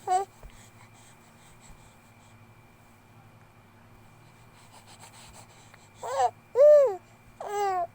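A 2-month-old baby's short vocal sounds: one brief squeak at the start, then three in quick succession near the end, the middle one longest, its pitch rising then falling.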